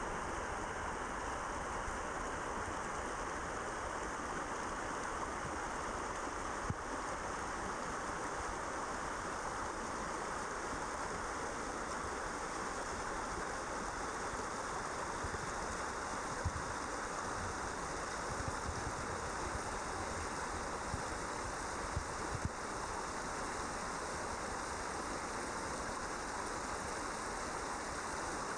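River rapids rushing steadily over and between rocks, with a few brief low bumps.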